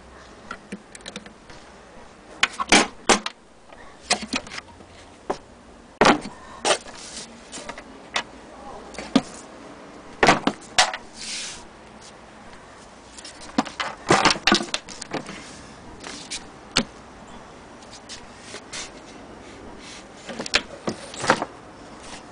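Irregular knocks and clicks of wood and metal, singly and in short clusters with quiet gaps between: the wooden cover and case of an antique hand-crank sewing machine being handled and fitted in place.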